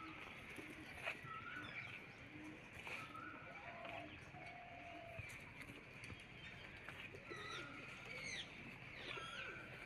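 A flock of aviary pigeons and doves cooing over and over, faint, with other birds chirping and whistling short notes among them.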